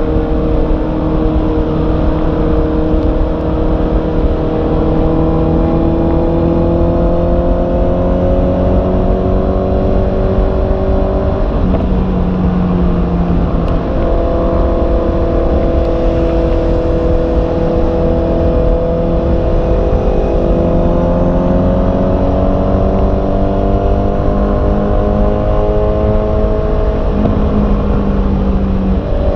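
Honda CB650R's inline-four engine under way, its note climbing slowly and dropping back at a few gear changes, over a steady low rush of wind and road noise.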